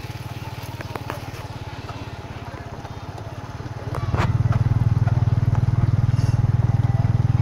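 Small motorbike engine running with a low, even pulse, getting clearly louder about four seconds in.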